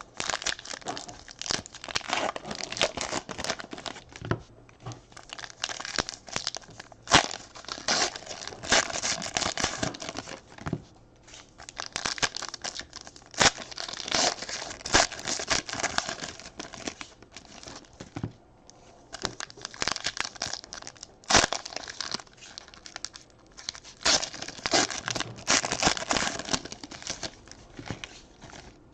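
Plastic trading-card pack wrappers being torn open and crumpled: crackling and crinkling with many sharp snaps, in bursts with a few short pauses.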